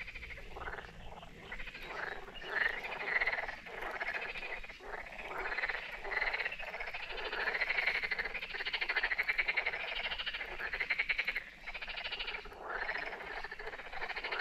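A chorus of frogs croaking, with many calls overlapping without a break.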